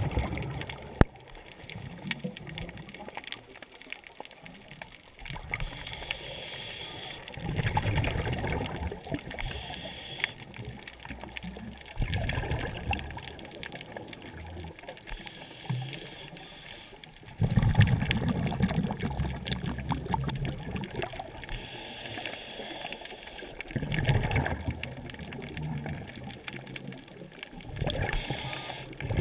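Scuba diver breathing through a regulator, heard underwater: a hiss on each inhale, then a rush of bubbling on each exhale, repeating every five or six seconds.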